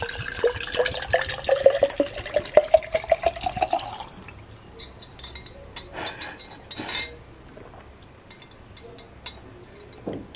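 Kombucha poured from a glass bottle into a glass mason jar for about four seconds, glugging, with a ringing pitch that rises steadily as the jar fills. After that come a few light glass clinks and a short sip through a metal straw.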